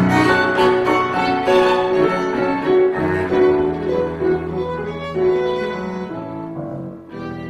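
Live piano trio of violin, cello and piano playing classical chamber music, the violin and cello bowing held notes over the piano. The playing grows quieter about six seconds in.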